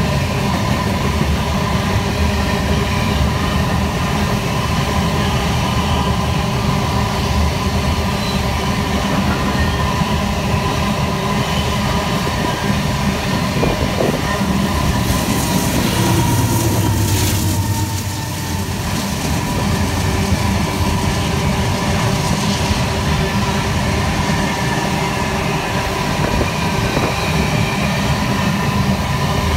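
Heavy freight train of empty iron-ore hopper wagons rolling past with a steady rumble and rattle of wheels on rails. About halfway through, a diesel locomotive in the middle of the train goes by and adds a low engine hum for a few seconds.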